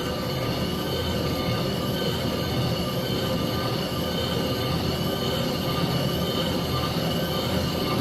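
Valve-seat pocket cutter running in a Ford 302 cylinder head: a steady metal-cutting squeal with several held tones over a low rumble.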